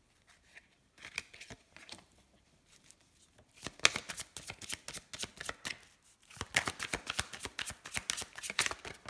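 A large deck of oracle cards being shuffled by hand. A few soft card clicks come first, then from about three and a half seconds in two long runs of rapid card-edge clicks and slaps, with a short break around six seconds.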